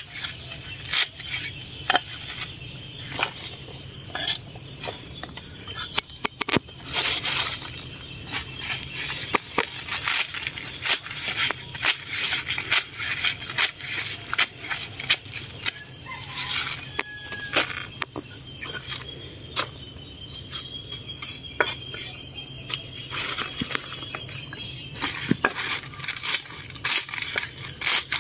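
Kitchen knife chopping mustard greens on a thick wooden chopping block: irregular quick knocks as the blade cuts through leaves and stalks into the wood.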